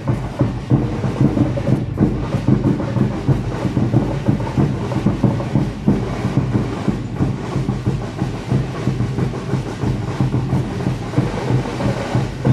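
Parade drums beating a dense, continuous rhythm that the marchers dance to.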